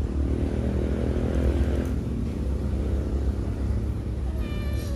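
Low rumble of a motor vehicle's engine running close by, strongest in the first two seconds. Near the end a cat gives a short meow.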